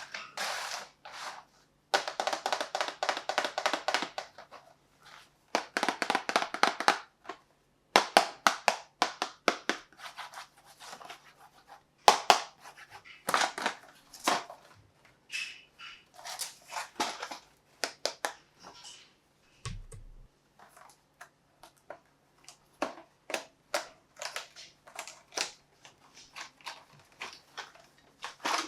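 Hard plastic toys being handled, clicking and clattering: two runs of rapid clicking of about two seconds each, then scattered taps and knocks.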